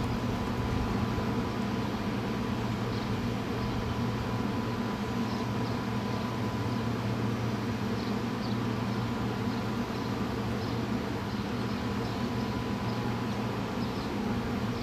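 A steady low mechanical hum with a thin high tone held over it, unchanging throughout, with faint short high chirps scattered above.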